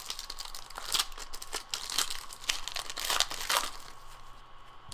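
Foil trading-card pack wrapper being torn open and crinkled, a run of crackling that starts about a second in and dies away near the four-second mark.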